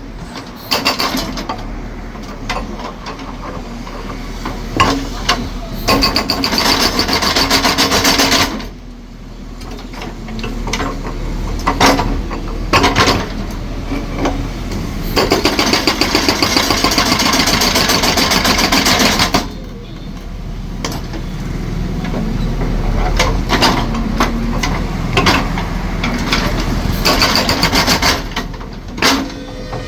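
Powered concrete breaker hammering concrete: bursts of rapid hammering a few seconds long, three times, over a steady low machine hum, with scattered knocks in between.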